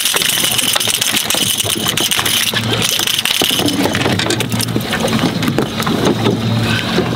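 Speckled trout flopping on a fiberglass boat deck, an irregular patter of knocks and slaps, over a steady low mechanical hum.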